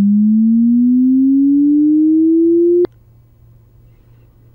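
Computer-generated pure sine-tone chirp from MATLAB played through the sound card, a linear sweep climbing from 110 Hz toward 660 Hz that rises steadily in pitch. About three seconds in it cuts off abruptly with a click as playback is paused.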